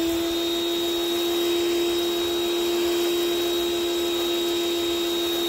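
Sun Joe electric pressure washer's motor running with a steady hum while the wand sprays a gentle soap mist through the soap nozzle, with the hiss of the spray.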